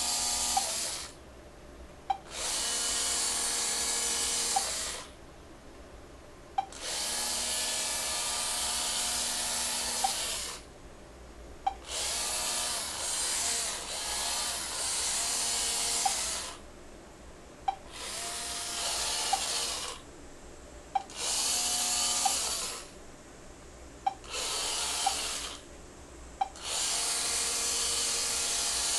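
Small robot car's hobby servos (ProGear) whirring in about eight bursts of one to four seconds as it is driven about, each burst starting with a sharp click.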